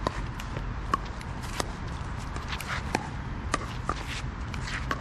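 Pickleball paddles striking the hollow plastic ball, with the ball bouncing on the court during a rally: about half a dozen sharp pocks at uneven intervals over a steady low background rumble.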